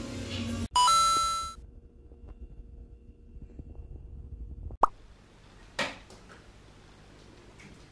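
Background music cuts off and a bright, bell-like ding rings for under a second. Quiet room sound follows, broken by a short pop about five seconds in and a brief noise a second later.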